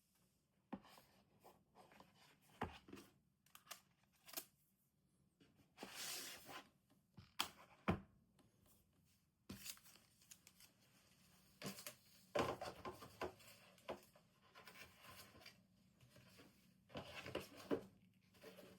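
Packaging being handled and opened: irregular rustling, tearing and sharp clicks of paper, card and plastic wrap, with louder tearing spells now and then.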